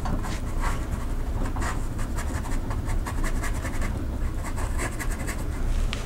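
Flat watercolour brush stroking and scratching across damp watercolour paper in quick short strokes, several a second, softening and blending a wet wash.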